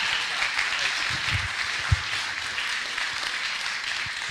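Live audience applauding, a dense steady clapping that slowly thins out toward the end. A single low thump comes about two seconds in.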